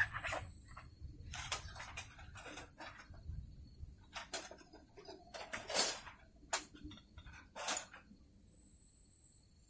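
Irregular clinks and knocks of metal cooking gear being handled and set down, a dozen or so sharp hits over several seconds. A faint steady high whine sets in near the end.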